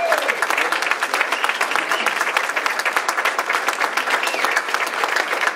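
Audience applauding steadily at the end of a song, many hands clapping at once.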